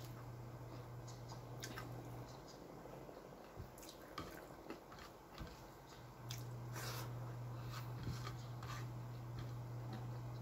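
A person eating with her fingers: chewing and small clicks of food and fingers on a plate. Under it runs a low steady hum that cuts out about two seconds in and comes back about six seconds in.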